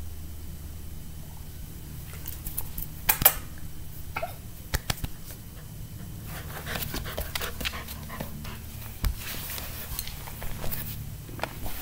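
A puppy panting and moving about close to the microphone, with scattered clicks and a knock about nine seconds in, over a steady low hum.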